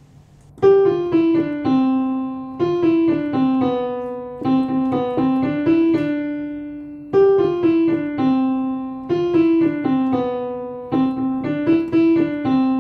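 Piano playing a simple single-note nursery-song melody, in two phrases of about six seconds each, each note struck and fading.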